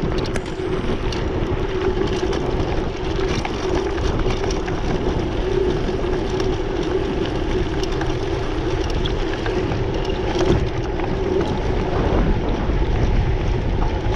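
Mountain bike rolling down a dirt trail: steady wind rushing over the microphone and tyre rumble, with frequent small clicks and rattles from the bike and gravel.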